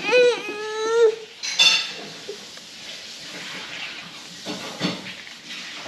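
A toddler's voice: a wordless, pitch-bending vocalization lasting about a second, followed by a brief high-pitched squeak. A few soft clicks and knocks come near the end.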